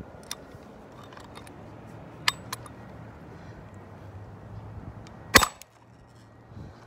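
A Windsor probe gun fires, its cartridge charge driving a steel probe into the concrete slab: one sharp, loud shot about five seconds in. A few small clicks come before it as the gun is held in position.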